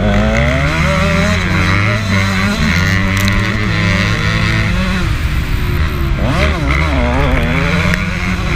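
KTM 150 SX two-stroke motocross engine running hard under racing throttle. Its pitch keeps rising and falling with throttle and gear changes, with a sharp climb about six and a half seconds in.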